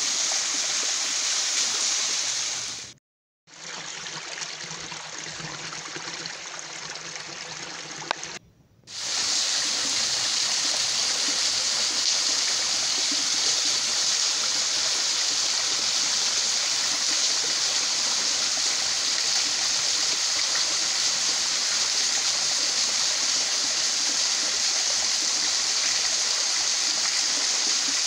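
Steady hiss and patter of a thin waterfall at low flow, dropping clear of the rock face and splashing onto the stones below. The sound cuts out briefly about three seconds in and again near nine seconds, and is quieter in between.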